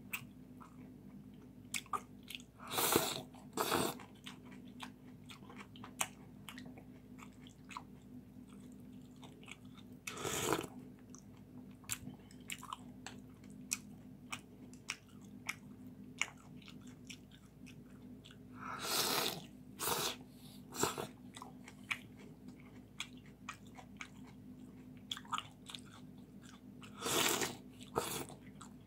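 Close-up eating of noodle soup: chewing and smacking with many short wet clicks, broken several times by longer, louder slurps as noodles and broth are drawn in from chopsticks and spoon.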